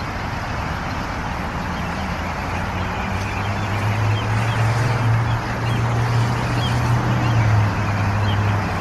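Steady outdoor traffic noise with a low engine hum that swells from about three seconds in and fades near the end, as a motor vehicle runs nearby; a few faint, short, high bird calls sound over it.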